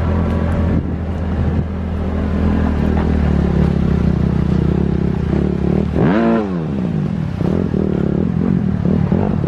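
Jeep engine running under load off-road, its revs dipping sharply and climbing back about six seconds in.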